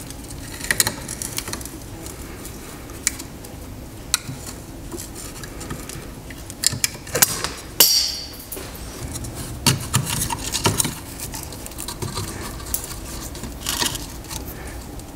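Pliers clinking and scraping on a parking brake shoe's rusty hold-down pin and spring cap as the cap is pushed in and turned off the pin, with scattered metallic clicks and one sharper ringing clink about eight seconds in.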